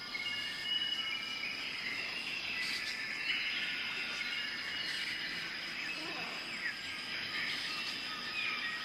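Jungle ambience: a steady, high-pitched insect drone with many short chirping and whistled calls over it, a few of them sliding in pitch.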